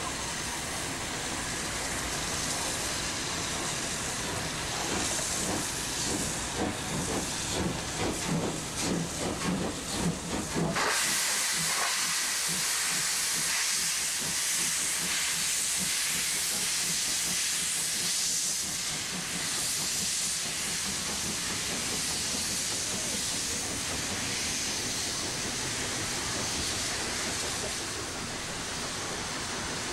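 Class 01 steam locomotives working hard with a train: rhythmic exhaust beats for the first ten seconds or so, then, about eleven seconds in, a loud steady hiss of steam as a locomotive passes close with its cylinder drain cocks blowing.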